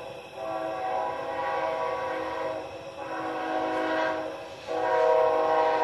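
Train horn sounding long, steady chord-like blasts, with short breaks about a third of a second in, near three seconds and about four and a half seconds in. The last blast is the loudest.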